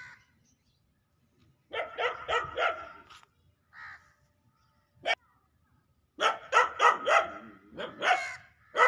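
Dog barking in quick runs of several barks, with single barks in between.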